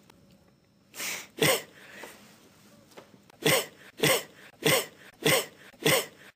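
A man coughing in short sharp bursts: two coughs about a second in, then five more in a steady run from about three and a half seconds.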